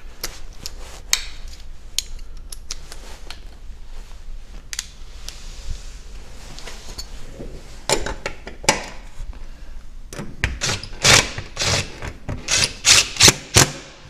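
Hand tools working at the strike plate on a wooden door jamb. Scattered light clicks and taps, then a quick run of about a dozen sharp knocks over the last few seconds.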